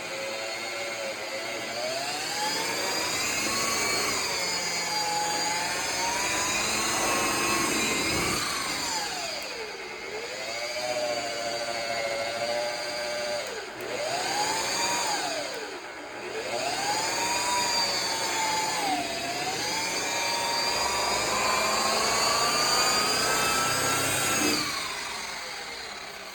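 Electric buffer/polisher motor running with a whine whose pitch keeps sagging and climbing back as the pad is loaded and eased off, several deep dips, then it shuts off near the end.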